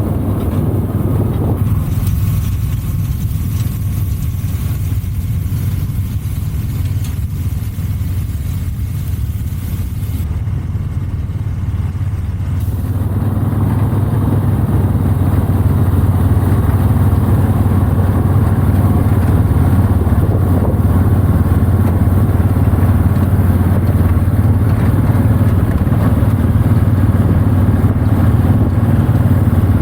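Farm tractor engine running steadily with a deep, even hum. It gets a little louder about halfway through.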